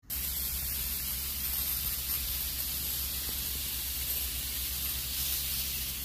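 Steady hiss over a low hum, unchanging throughout: the running background noise of a paint shop.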